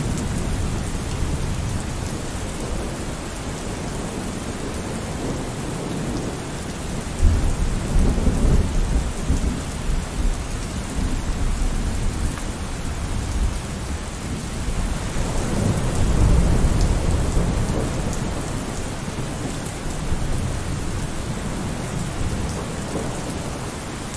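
Steady rain with thunder rumbling low, swelling about seven seconds in and again about fifteen seconds in.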